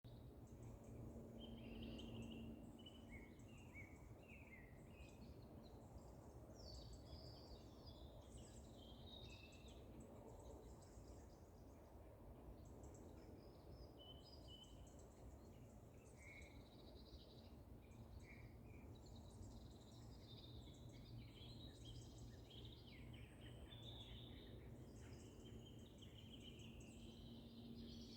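Faint winter birdsong: several small birds chirping and trilling in short high phrases throughout, over a steady low background rumble with a faint hum.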